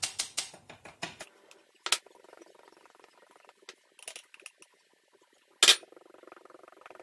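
Flour being sifted through a small plastic hand sieve over a glass bowl. Quick taps on the sieve, about six a second, run through the first second, then come scattered lighter knocks and one sharp, louder knock shortly before the end.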